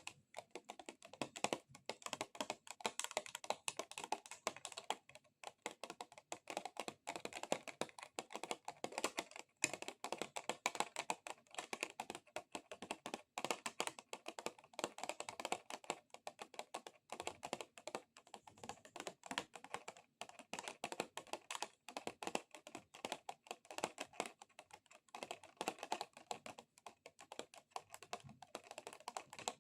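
Extra-long fingernails tapping fast on plastic: a dense, uneven run of quick clicks like typing, broken by a few brief pauses.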